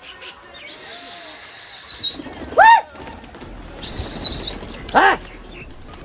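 A flock of domestic pigeons taking off together, a rustle of flapping wings, as the keeper flies them off the roof. Over it, a high warbling whistle sounds twice and two short loud whoops ring out, the calls that send the pigeons up.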